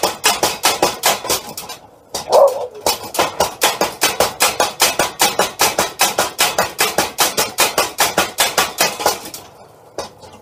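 Homemade power hammer pounding white-hot steel in a forge-weld attempt, a rapid run of metal blows at about five a second. The blows pause briefly near two seconds in, where one short louder sound is heard, then resume and stop near the end.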